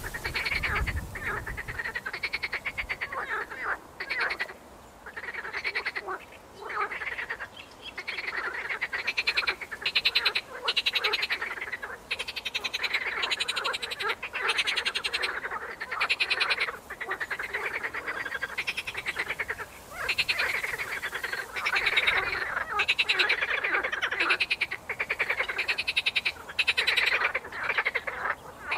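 A chorus of frogs calling: many overlapping calls, each a fast rattling run of pulses lasting a second or two, following one another almost without pause.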